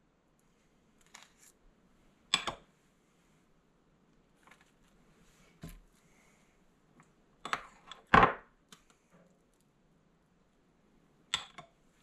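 A handful of short clicks and knocks from assembling sandwiches: a table knife tapping and scraping as mayonnaise is spread on buns, and bun tops set down on a wooden cutting board. The sharpest knock comes a little past eight seconds in.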